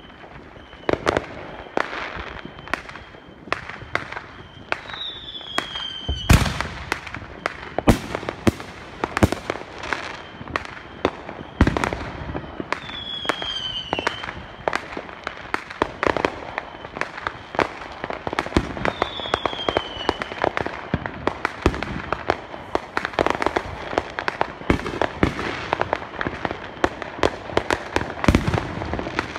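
Fireworks going off in a steady stream of sharp bangs and pops, a few much louder than the rest. Three short whistles, each about a second long, fall in pitch among the bangs.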